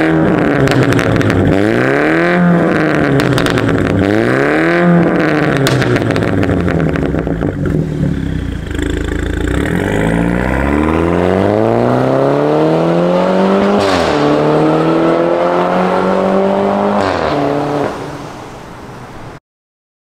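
BMW 330i's B48 turbocharged 2.0-litre four-cylinder through an Fi Exhaust valvetronic catback with quad tips: blipped twice, engine pitch rising and falling each time. The car then accelerates away, the note climbing, dropping sharply at an upshift and climbing again before fading as it draws off.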